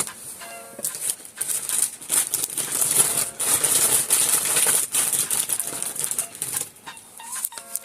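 Packs of Skittles and other wrapped candy crinkling and clicking as they are handled and pushed into a toy mini claw machine; a quick, irregular run of small clicks and rustles.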